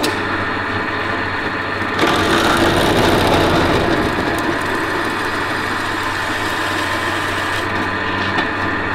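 Pillar drill switched on, its motor running with a steady hum; about two seconds in, a large Morse taper drill bit starts cutting into a thin aluminium panel, adding a louder, rougher cutting noise that carries on steadily.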